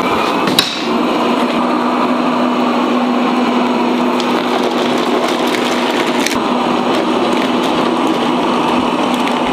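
Verefa V60 M Pro robot vacuum running in auto cleaning mode: a steady rush of fan and brush noise over a low, even hum, with a sharp click about half a second in and another about six seconds in.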